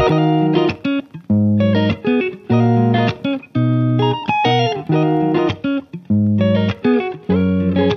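Background music of plucked guitar, played as short chords with brief gaps between them.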